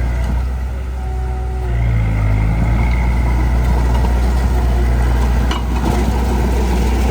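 Heavy-equipment diesel engine running steadily under load. It eases off briefly, then picks up again about two seconds in. A short knock sounds about five and a half seconds in.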